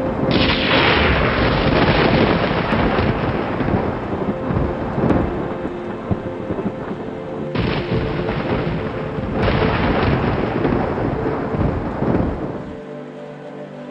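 Thunderstorm: rolling thunder with three sharp claps, one near the start and two more in the second half, over steady rain. The rumble fades out near the end.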